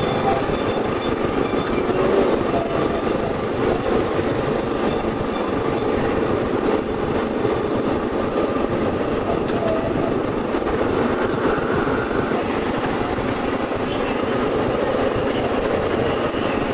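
Steady rumbling and rushing of an amusement-park ride vehicle moving along its track, with a faint squeal of wheels.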